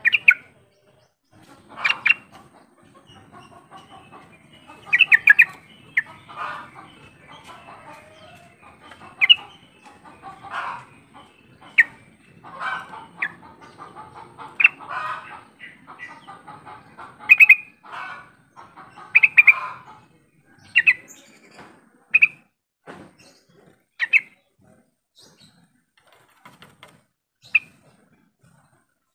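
Yellow-vented bulbul calling: short, sharp chirps every second or two, with softer bubbling chatter between them for the first two-thirds, then only scattered single chirps near the end.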